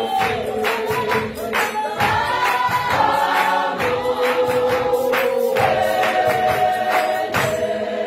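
Large mixed choir singing long held chords in parts, over a regular percussive beat of about two strikes a second.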